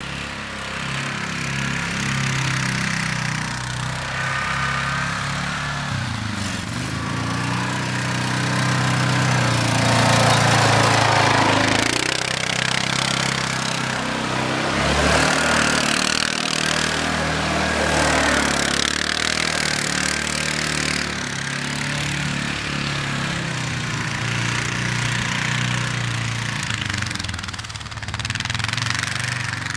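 Quad bike (ATV) engine running and revving up and down repeatedly as it is driven hard, with louder surges of noise at several points.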